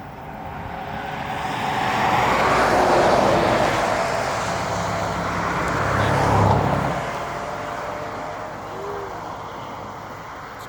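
A car drives past, its noise swelling to a peak about three seconds in, rising again briefly around six seconds, then fading away.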